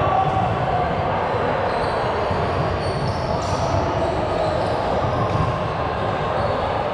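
Indoor team ball game: a ball thudding now and then, over background voices and shoe noise echoing in a large gym.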